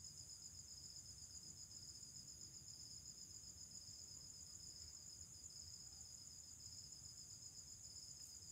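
Insects trilling faintly and steadily, a continuous high-pitched pulsing trill over a faint low background hum.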